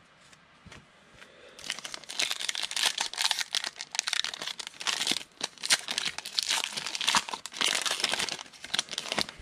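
Foil wrapper of a trading-card pack torn open and crinkled by hand: a dense crackling that starts about a second and a half in and keeps going until shortly before the end.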